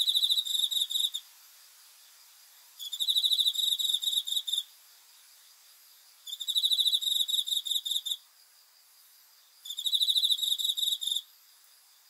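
A cricket singing: four high trills of about a second and a half each, each a rapid run of pulses, with pauses of about a second and a half between them.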